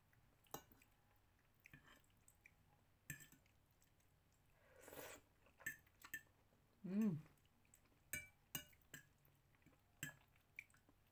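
Faint eating sounds: a metal fork clicking and scraping on a ceramic plate now and then, with chewing. A noisy breath comes about halfway through, and a brief hummed "mm" about seven seconds in.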